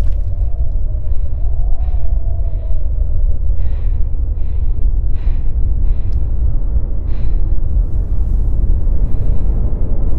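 A woman's heavy, gasping breaths, a short puff every half second to a second, over a loud steady rumble of wind buffeting the microphone.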